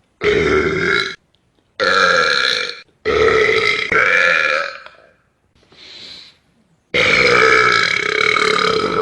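A man burping loudly, four long, drawn-out burps in a row, each lasting one to two seconds, with a faint breath about six seconds in.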